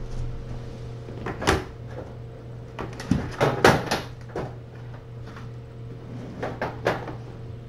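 A few sharp knocks and clatters in three clusters, the loudest about three and a half seconds in, like a cupboard or door being handled, over a steady low hum.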